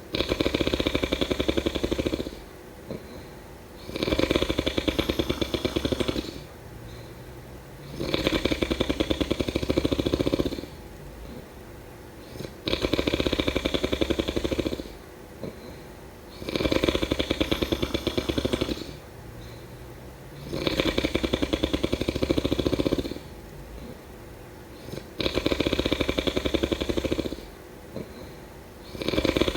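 A person snoring: a rattling snore about two seconds long comes roughly every four seconds, with quieter breathing sound in between.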